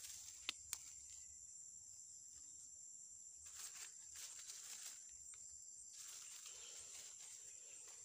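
Faint, steady, high-pitched insect drone, with dry leaf litter rustling now and then as hands work a bamboo-stick trap on the ground. Two sharp clicks about half a second in.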